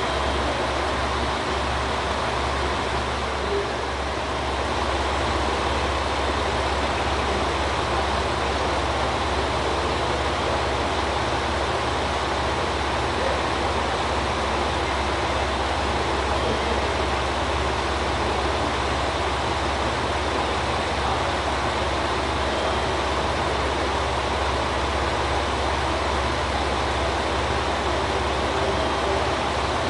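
KiHa 185 diesel railcar idling at the platform, a steady low engine drone with no change in speed.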